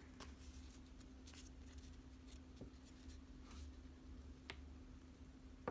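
Near silence with faint handling noises: a few soft clicks and rustles of Pokémon trading cards and their pack being handled, over a low steady hum.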